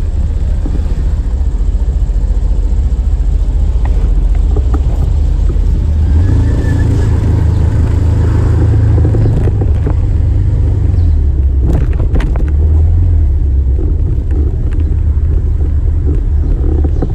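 Vehicle driving through city traffic: a steady low rumble of engine, road and wind noise, with a few short clicks about twelve seconds in.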